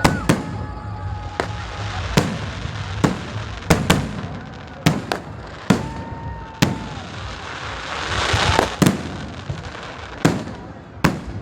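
Fireworks going off in a steady run of sharp bangs, about one a second. A short whistling tone comes about six seconds in, and a hiss swells up and ends in a bang near nine seconds.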